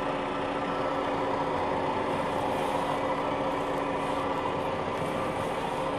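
Combine harvester running steadily while stopped, a constant machine drone with a few steady tones over an even rushing noise.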